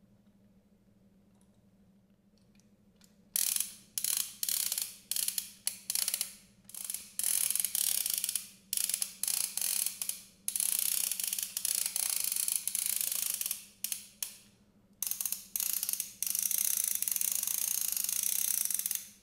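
Plastic toy fishing reel being cranked by hand: a fast ratcheting clatter in stop-start runs of winding, some brief and some several seconds long, starting about three seconds in.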